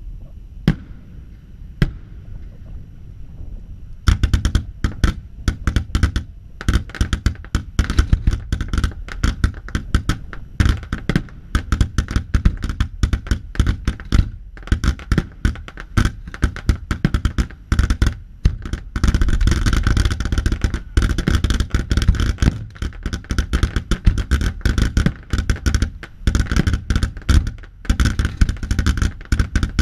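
Fireworks display: two single bangs in the first two seconds, then from about four seconds in a dense, fast barrage of bangs and crackling.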